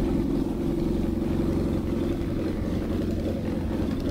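Homebuilt Minimax 1100R ultralight's engine and propeller running steadily at about 2300 RPM on a break-in ground run.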